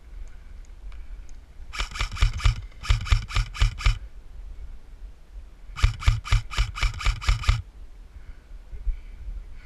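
An airsoft gun firing close by in three quick strings of shots, about six a second, each shot a sharp snap.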